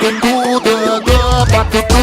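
Loud dance music with a looping synth melody; the bass beat drops out and comes back in about a second in.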